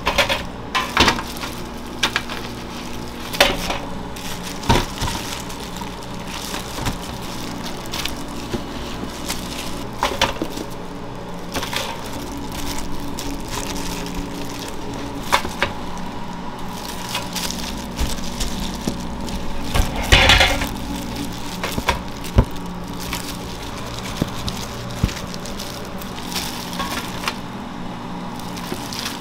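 Food-preparation sounds: scattered light knocks, clinks and taps of utensils and dishes over a steady equipment hum, with a louder cluster of knocks about two-thirds of the way through.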